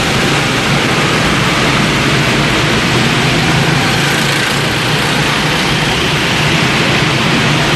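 Go-kart engines running as karts lap an indoor track, a steady drone with no clear rise or fall.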